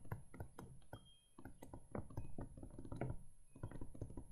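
Stylus tapping and scraping on a pen tablet as words are handwritten: a quick, irregular run of faint clicks and small knocks.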